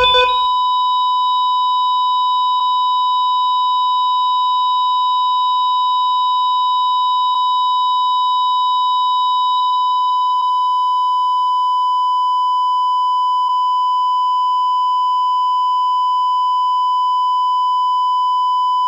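Patient heart monitor's flatline alarm: one long, unbroken, steady beep tone, the sign that the monitor detects no heartbeat.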